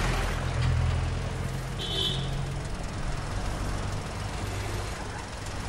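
Auto-rickshaw engine idling steadily, with a brief high-pitched tone about two seconds in.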